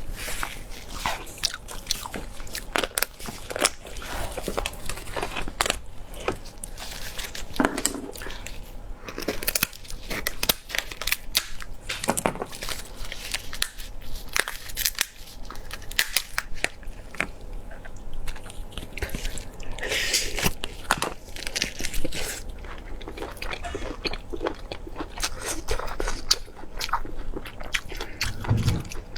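Close-miked eating: a person biting and chewing, with many sharp crunches and clicks.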